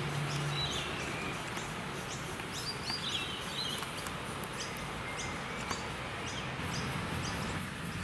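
Birds chirping over steady outdoor noise as a miniature live steam locomotive and its goods wagons roll past on the track.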